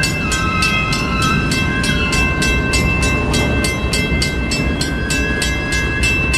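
Freight train cars rolling past close by with a low rumble. Over it runs an even, fast clatter of about five sharp strokes a second, with steady high ringing tones.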